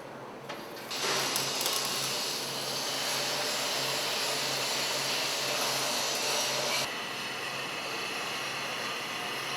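A steady, loud hiss with a low hum from metalworking shop equipment. It starts abruptly about a second in and drops to a lower level near the end.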